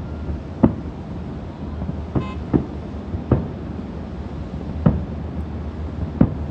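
Distant fireworks shells bursting: six separate booms a second or so apart, each with a short rumbling echo, over a steady low rumble.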